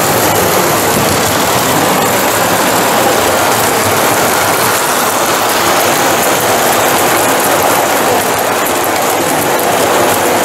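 A model train running on an exhibition layout, a steady unbroken noise.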